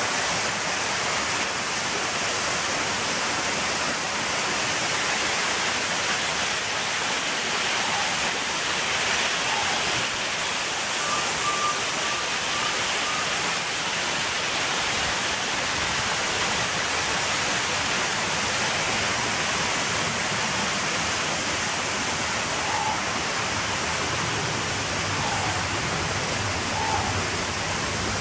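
A steady, even rushing hiss with no change in level, and a few faint short chirps: a quick run of them about halfway through and single ones near the end.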